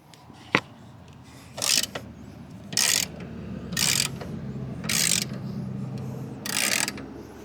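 Socket ratchet working a motorcycle's rear axle nut loose, its pawl clicking in five short bursts about a second apart as the handle is swung back between turns.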